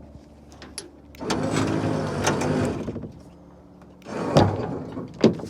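Trailer winch running for about two seconds, dragging the scrap truck section up; about four seconds in a loud scraping clank of metal, and a sharp knock near the end.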